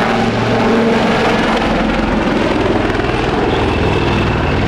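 AW159 Wildcat helicopters flying overhead: loud, steady rotor beat and turbine noise.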